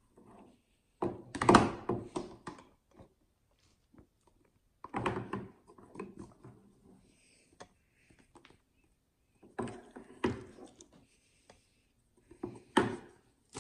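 Square plastic slime containers and their snap-on plastic lids being handled, lifted off and set down on a hard countertop: four short spells of dull thunks and plastic knocks, with near silence between.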